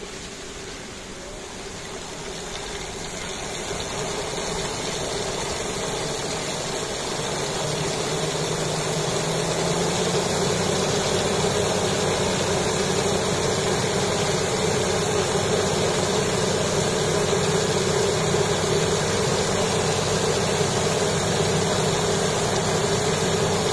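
Homemade Pelton wheel turbine in a washing-machine tub housing coming up to speed under its water jet. Rushing, spraying water grows louder over the first ten seconds or so, and a steady hum sets in about a third of the way through.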